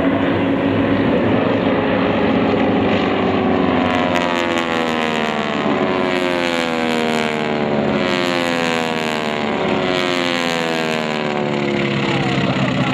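Several North American T-6 Texans in formation aerobatics, their Pratt & Whitney R-1340 nine-cylinder radial engines and propellers running. From about four seconds in, the engine notes slide slowly down in pitch and overlap as the aircraft pass and separate.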